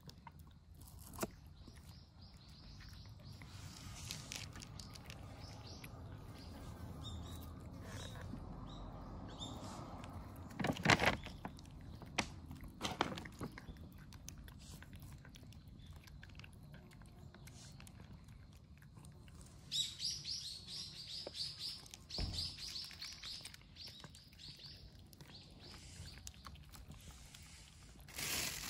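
Small birds chirping in quick repeated runs, with a few sharp clicks or knocks about eleven and thirteen seconds in.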